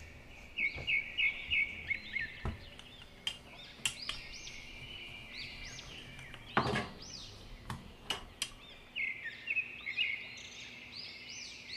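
Birds chirping and twittering continuously in the background, with a few light knocks and taps from dough being rolled out with a rolling pin on the counter, the loudest about two-thirds of the way through.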